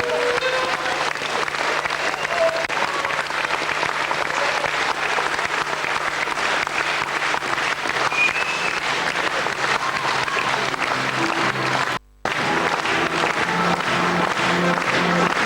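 Audience applauding steadily, with music underneath. About ten seconds in, a steady rhythmic beat comes in, and the sound cuts out for a moment shortly after.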